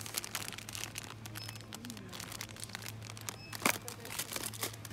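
Plastic wrapper of a Golden Oreo biscuit packet crinkling and crackling as it is handled, with one sharper crackle about three and a half seconds in, over a steady low hum.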